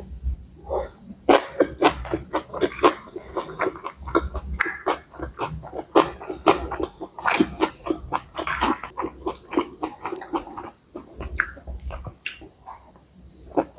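Close-miked eating: a person chewing and smacking mouthfuls of pad see ew (soy-sauce stir-fried noodles with pork and Chinese kale), with dense, irregular wet clicks.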